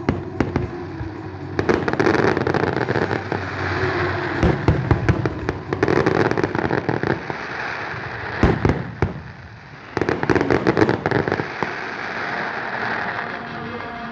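Aerial fireworks bursting in quick succession, sharp bangs over dense crackling, with a short lull about nine seconds in before the bursts start again.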